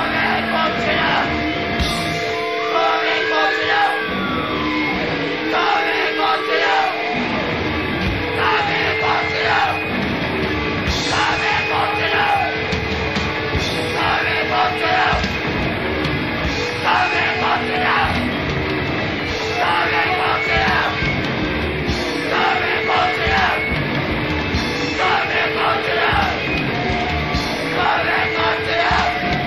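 Noisy hardcore punk with distorted guitar, bass, drums, yelled vocals and harsh added noise, played loud and dense. A high squeal arcs up and back down a few seconds in, and after that the riff falls into a pattern that repeats about every one and a half to two seconds.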